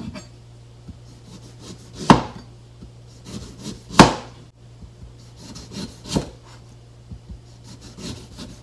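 Chef's knife slicing a lemon and knocking down onto a plastic cutting board. The two loudest chops fall about two seconds apart, with lighter cuts and taps between and after.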